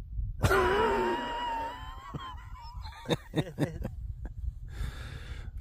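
A man laughing: a long, high, wavering laugh, breaking into short chuckles about three seconds in.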